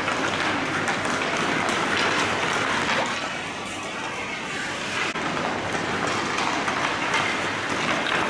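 Hockey skates scraping and carving across the ice, with scattered sharp clicks of sticks on pucks, a little quieter for a couple of seconds in the middle.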